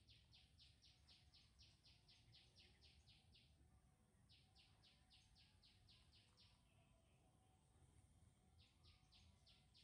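Faint outdoor ambience with a rapid series of high, evenly spaced chirps, about four or five a second, that stops and starts again twice.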